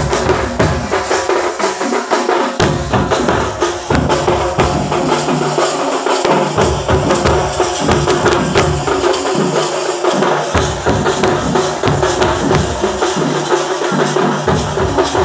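A group of chenda drums beaten with sticks: a loud, fast, continuous drumbeat with a bright, jangling top.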